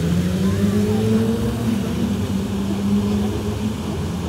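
A motor vehicle's engine running, its pitch rising a little over the first second and a half and then holding steady.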